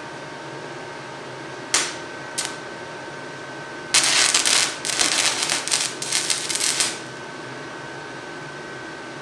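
Stick welding arc from a Forney Easy Weld 100 ST at 90 amps with a 1/8-inch 7014 rod, laying a tack weld. Two brief sputters as the rod is struck come about two seconds in. About four seconds in, the arc catches and runs for about three seconds in short, broken stretches, then cuts off.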